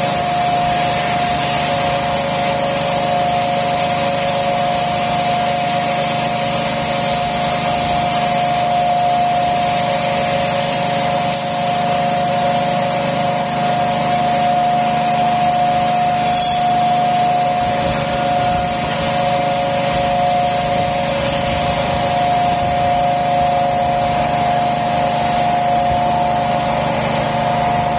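Polystyrene concrete block production line machinery running: a steady hum and two held whining tones under a loud hiss that does not change.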